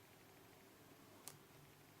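Near silence, broken by one faint click a little over a second in: a USB-C plug being pushed into or pulled out of its socket.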